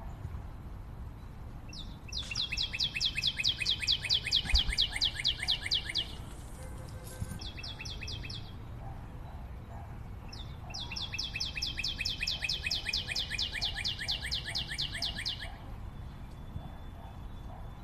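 A bird singing two long, rapid trills of about four seconds each, the pulses evenly spaced and the pitch sinking slightly, with a short trill between them. Fainter chirping sounds lie under them.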